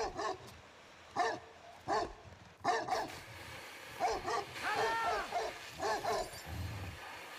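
Tibetan mastiff barking repeatedly, deep barks coming about every half second to a second.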